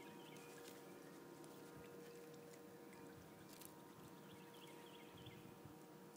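Near silence: a faint steady hum, with a few faint short high chirps near the start and again about four seconds in.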